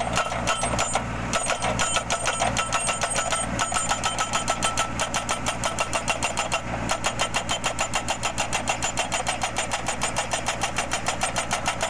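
Tractor-mounted hydraulic post-driving hammer pounding a steel crash-barrier post into the ground: rapid, even metal-on-metal blows at about five a second, over the tractor's engine running steadily.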